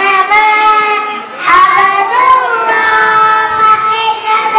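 Young children singing together in unison, with long held notes that slide between pitches. The voices dip about a second in and then come back in strongly.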